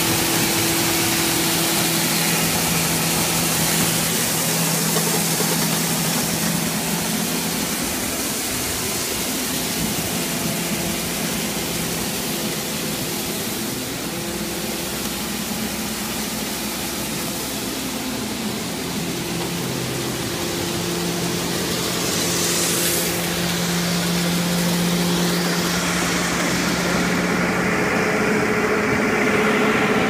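Farm tractor running a grain auger and grinder-mixer as shelled corn pours through: a steady machine drone with a low hum under a hiss of running grain. The hiss turns duller near the end.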